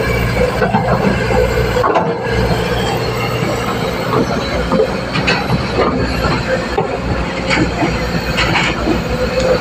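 L&T excavator at work: engine running steadily under load, with repeated short metallic squeals and scrapes from the machine's moving parts.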